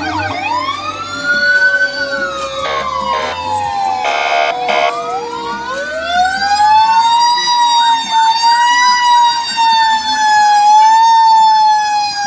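Several fire engine sirens wailing at once, overlapping and gliding up and down in pitch, with two short horn blasts about four seconds in. From about six seconds one siren winds up and holds a loud, steady wail.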